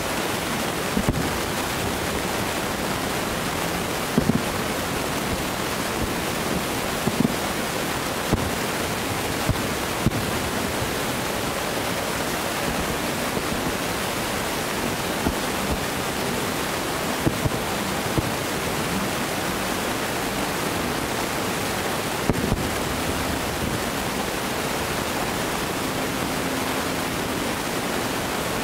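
Distant aerial firework shells bursting, heard as scattered short, dull thumps, about a dozen over the stretch, under a steady rushing noise.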